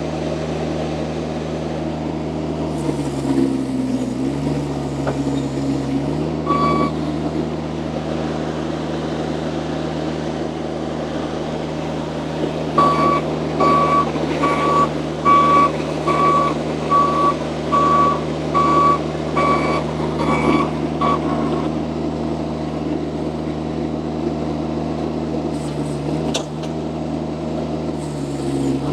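Mini skid steer loader engine running steadily, its note dipping briefly under load a few seconds in. Its reversing alarm beeps once, then about ten more times in an even row, a little over one beep a second, in the middle of the stretch.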